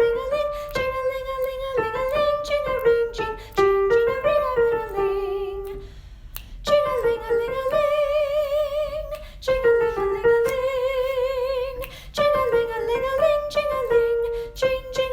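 A soprano voice sings a melody line in a high register, with vibrato on the held notes and a short break for breath about six seconds in, over instrumental accompaniment.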